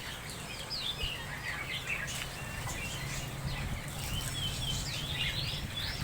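Many small birds chirping and twittering together in short overlapping calls, over a low steady hum.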